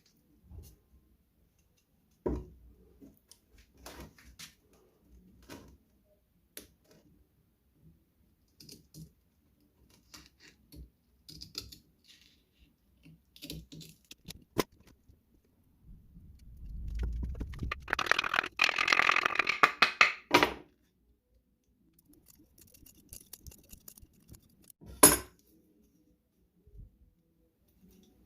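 Scattered light clicks and knocks of tools and parts being handled, with a few seconds of scraping or rustling noise about two-thirds of the way through and one sharp knock near the end.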